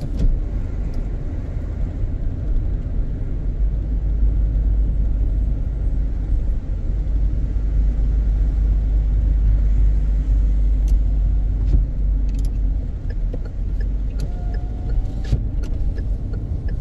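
Steady low rumble of a car on the move, heard from inside the cabin, with a few faint clicks in the second half.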